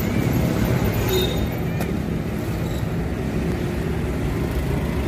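Steady low rumbling background noise at an even level, with one faint click about two seconds in.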